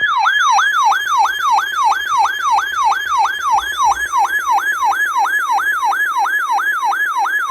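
Electronic emergency alert tone, a siren-like wail that sweeps rapidly and repeatedly, each sweep falling in pitch, about three a second. It is the attention signal that opens an Emergency Alert System severe thunderstorm warning.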